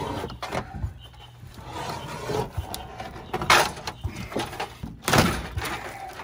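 Thin sheet-aluminum siding being bent and pried off an old truck camper's wooden frame: crinkling and scraping metal, with two sharp tearing noises, one about three and a half seconds in and a louder one about five seconds in.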